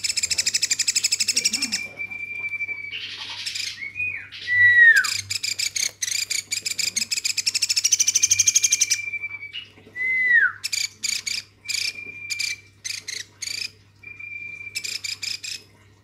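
Woodpecker chick calling constantly, the begging calls of a hand-reared nestling. It gives long, very fast rattling trills, short downward-sliding whistles, and several short choppy bursts in the second half.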